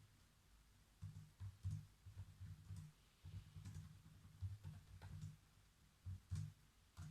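Faint typing on a computer keyboard: runs of keystrokes in irregular bursts with short pauses between them, each key landing with a soft dull thud.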